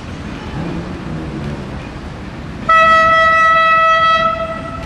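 Railcar's horn: one steady, single-pitched blast of about two seconds that starts suddenly about two and a half seconds in and fades out near the end, over a low rumble.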